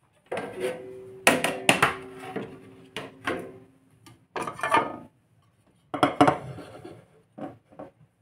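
Kitchenware being set down on a counter: a metal baking tray knocks and rings with a brief ringing tone, then a glass plate clatters down in a few sharp knocks, followed by light taps.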